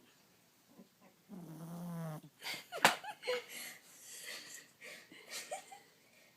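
A sleeping dog snoring: one drawn-out, pitched snore lasting about a second, then a sharp, loud snort a little under three seconds in, followed by several noisy, breathy snores.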